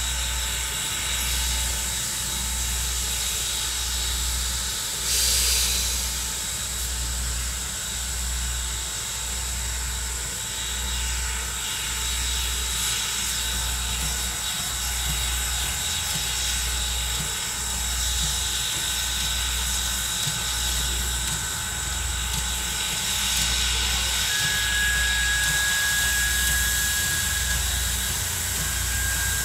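Norfolk & Western 475, a 4-8-0 steam locomotive, standing and hissing steadily, with a low rhythmic thumping about once a second. About five seconds in there is a short, louder burst of hiss.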